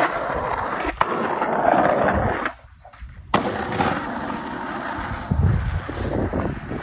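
Skateboard wheels rolling over concrete pavement and asphalt, a steady rough rumble, with a sharp click about a second in. The sound cuts out briefly about two and a half seconds in, then the rolling carries on with a few low knocks near the end.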